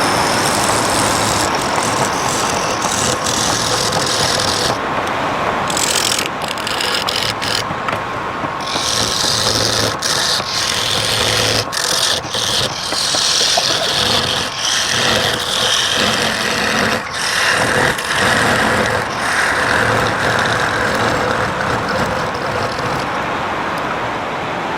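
Wood lathe running with a turning tool cutting the spinning wood: a steady hissing scrape that shifts as the cut changes, broken by short gaps and clicks.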